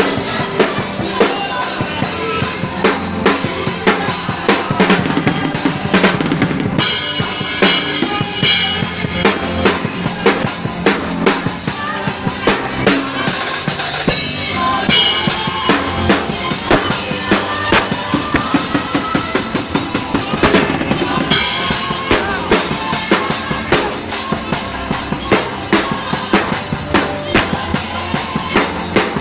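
Live drum kit playing a steady, loud beat, with kick and snare accents about twice a second, over band music.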